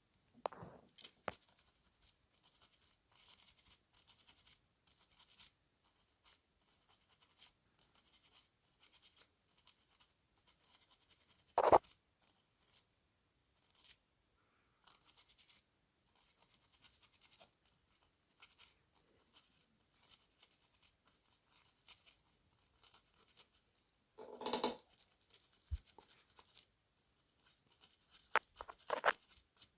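Faint, irregular scratching and scraping of small hand tools working at a tablet's USB-C charge-port circuit board, with a few short louder knocks, the loudest about halfway through.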